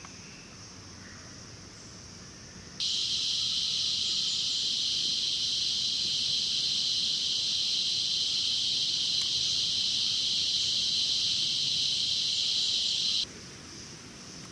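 Loud, steady, high-pitched buzzing of rainforest insects, which starts abruptly about three seconds in and cuts off about a second before the end. A fainter insect hum continues on either side of it.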